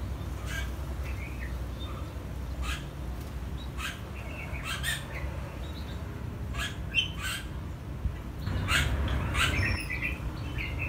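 Birds giving short, sharp chirps and calls at irregular intervals, coming thicker and louder near the end, over a low steady rumble.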